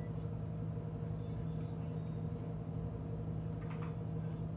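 A steady machine-like hum, even in level throughout, with a faint click or two of small plastic buckle parts being handled about three and a half seconds in.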